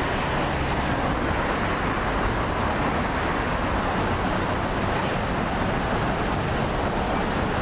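Steady city traffic noise from cars passing on the street, with a constant low rumble.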